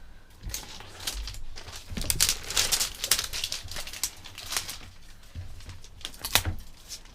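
Wrapping of a giant surprise egg crinkling and rustling as it is pulled and torn open, in irregular crackling bursts.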